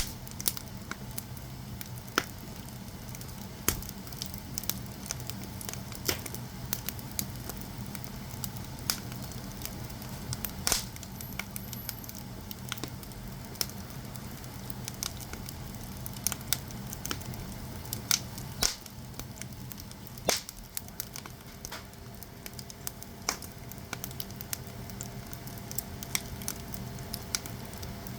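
Firewood burning in a traditional Korean agungi firebox: irregular sharp crackles and pops over a steady low hum.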